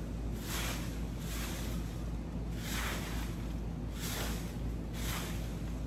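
Straw broom sweeping storm debris of leaves and twigs across bare soil: about five separate swishing strokes, roughly a second apart.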